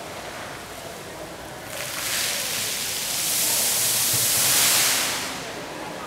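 Fountain water jets spraying and splashing down with a steady hiss. The hiss swells about two seconds in as the jets surge, then falls back near the end.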